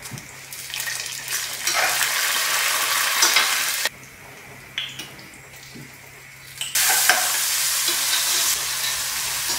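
Peanuts, dals and curry leaves sizzling in hot oil in a stainless steel pot, with stirring. The sizzle cuts off suddenly about four seconds in and comes back about three seconds later.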